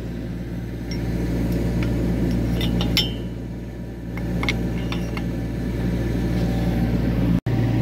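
Kubota U25 mini excavator's diesel engine running steadily at idle, with a few light metal clinks as steel pins are slid through the helical pier drive adapter and shaft.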